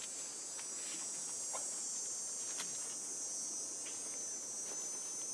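Steady high-pitched chorus of insects in grassland, with a few faint short ticks and rustles.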